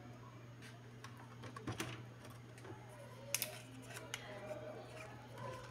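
Small plastic clicks and snaps from handling a Canon ink bottle and its cap, with sharp clicks about two seconds in, a louder one about three and a half seconds in and another just after four seconds, over a low steady hum.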